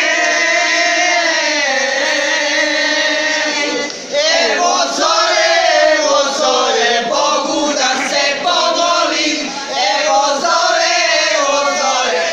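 A group of women singing a folk song together, loud, with long held notes. There is a brief break about four seconds in before the singing picks up again.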